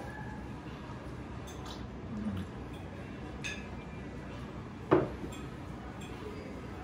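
Dishes and cutlery clinking at a table, with one sharper, louder knock about five seconds in, over steady room noise.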